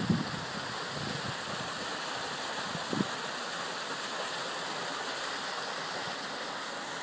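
Steady rush of flowing water, like a stream or waterfall feeding a pool, with one brief soft thump about three seconds in.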